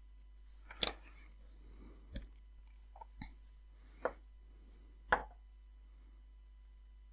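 Sharp knocks and clicks of a metal helping-hands soldering stand being handled and repositioned on a wooden table, five or so separate knocks with the loudest about a second in, over a faint steady low hum.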